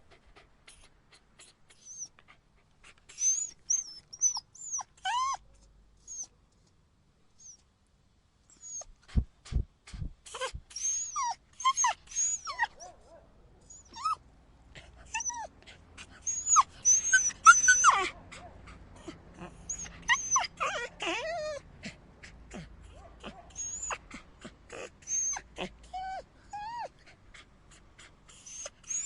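Dogs yelping and whimpering: short, high-pitched cries in irregular clusters with brief pauses between. A few low thumps come about nine to ten seconds in.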